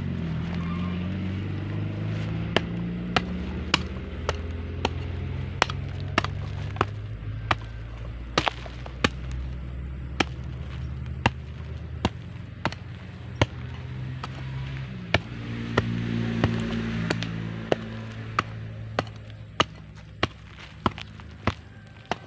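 Hoe blade chopping into dry, clumpy soil in steady repeated strikes, about one and a half a second, over a low steady drone.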